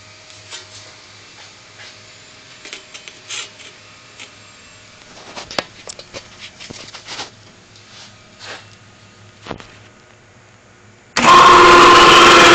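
Scattered light clicks and knocks over a quiet background, then about eleven seconds in an electric drive motor on an Eastwood bead roller switches on abruptly and runs loud and steady with a constant whine, turning the rollers to press a bead into sheet metal.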